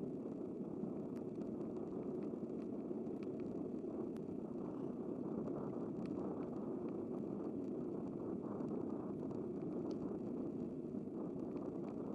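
Steady rushing noise of a bicycle being ridden along a city road, wind and tyre noise together, with a few faint ticks scattered through it.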